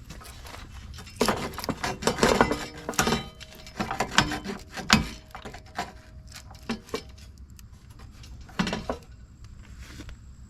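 Clattering and clinking of metal and plastic parts and tools being handled while a car's front end is taken apart, a dense run of knocks for a few seconds with some ringing, then another short clatter near the end.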